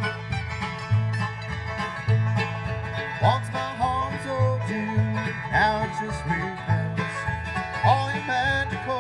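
Bluegrass band playing an instrumental passage, banjo and guitars over upright bass, amplified through a Danley Sound Labs SM80 loudspeaker and TH118xl subwoofer system.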